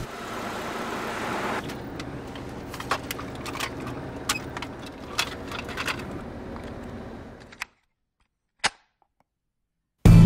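Car interior running noise, a steady low rumble, with scattered sharp clicks and knocks from about two seconds in. The sound cuts out about seven and a half seconds in, leaving silence broken by a single click. Band music with drums and guitar starts right at the end.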